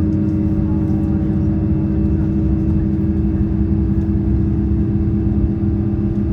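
Steady engine drone and rumbling running noise of a KiHa 283 series diesel railcar at speed, heard inside the passenger cabin.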